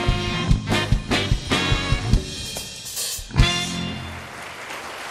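A saxophone ensemble with drum kit plays the closing bars of a swing-style jazz tune, ending on a final accented hit about three and a half seconds in, followed by audience applause.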